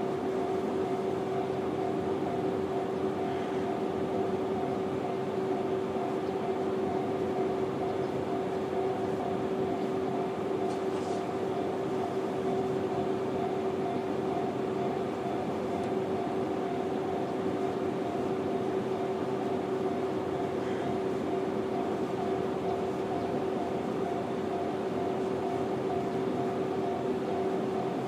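Japanese railway level-crossing alarm sounding the JR standard electronic warning tone, ringing continuously and evenly at two steady pitches.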